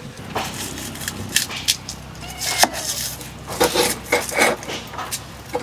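Irregular sharp knocks and clatters, like wood or utensils being handled, with a few brief high chirps in between.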